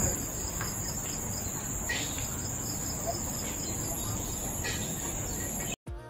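Forest insects keeping up a steady, high-pitched drone, with a few faint bird chirps about two seconds in and again near the end.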